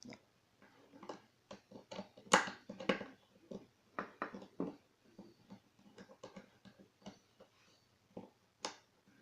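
Irregular small metal clicks, taps and knocks of a pin-tumbler lock being worked apart by hand, with the loudest knock about two and a half seconds in.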